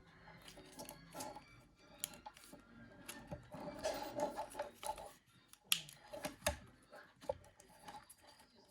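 Plastic parts of a Nokia 9300i communicator's housing being handled and fitted together: faint, irregular small clicks, taps and scraping, with a few sharper clicks in the second half as the middle part is seated.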